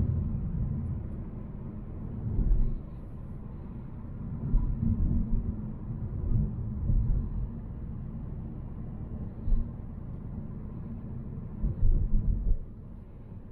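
Volvo C70 driving: a low engine and road rumble that swells and eases several times.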